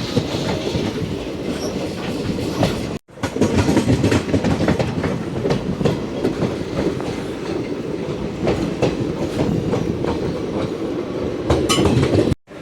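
Passenger train running along the track, its wheels clattering over the rail joints with a steady rumble. The sound drops out briefly about three seconds in and again near the end.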